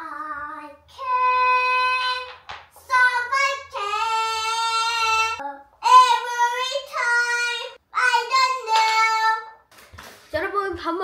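A child singing a string of long, held high notes, with short breaks between them and no instrument behind.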